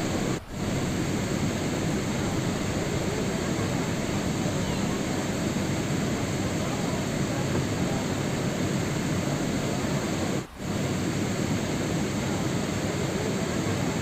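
Steady rain: an even, unbroken hiss that cuts out briefly twice, about half a second in and about ten and a half seconds in.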